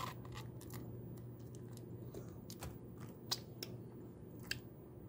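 Small crinkles and light clicks of a plastic ketchup packet being squeezed and a plastic fork stirring in a paper instant-noodle cup, with two sharper clicks a little past the middle. A steady low hum runs underneath.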